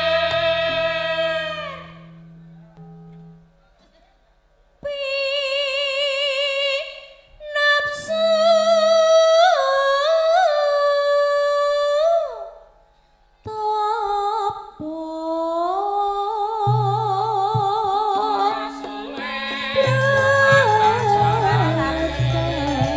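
Javanese langgam Sragenan song: a high female voice sings long, wavering held notes and slow melismatic phrases with pauses between them. Low accompanying notes enter about two-thirds through, and the band thickens near the end.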